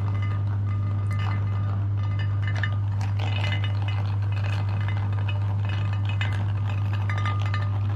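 Electric meat grinder running with a steady low hum, with clinking and rattling throughout as pieces are fed through.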